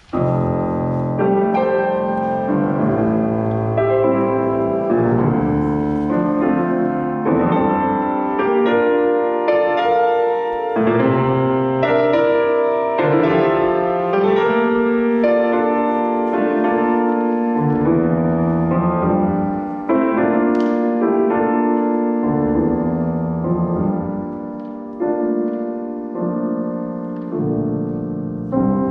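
Grand piano playing classical music live, a steady flow of notes that grows softer for a while about two-thirds of the way through.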